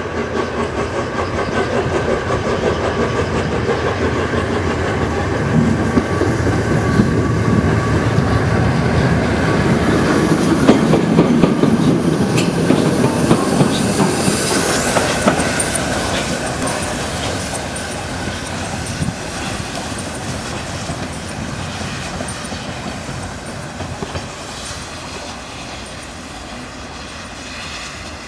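The Peppercorn A1 three-cylinder steam locomotive Tornado running light engine under steam and passing by. Its exhaust and its wheels on the rails grow louder as it approaches, are loudest around the middle, then fade as it draws away.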